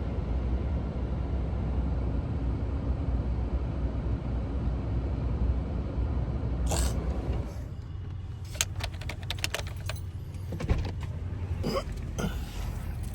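Steady low road rumble inside a moving car. About seven seconds in it drops away, and a run of sharp clicks and light rattles follows.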